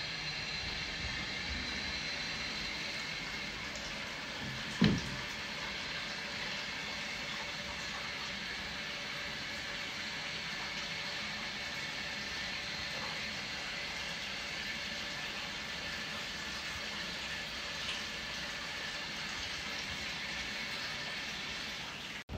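Hot spring water running steadily into a wooden bathtub, a continuous even rushing. A single dull thump about five seconds in.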